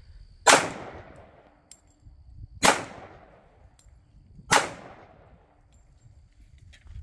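Three slow, single shots from a .45 ACP Glock pistol, about two seconds apart, each trailing off in an echo.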